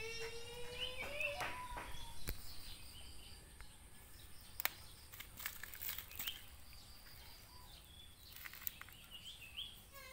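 An animal call, drawn out and slowly rising, that ends about a second and a half in. After it come a few sharp knocks and, near the end, faint short high chirps.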